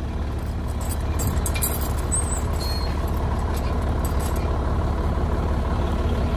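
Truck engine idling steadily. A few light metallic clinks come about two seconds in, from the winch cables and their hook rigging being handled on the truck's frame.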